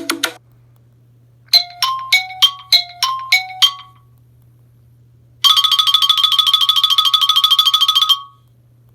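iPhone ringtones played one after another. After a short run of chime notes alternating between two pitches comes a pause, then a rapid, high trilling ring lasting nearly three seconds that stops abruptly.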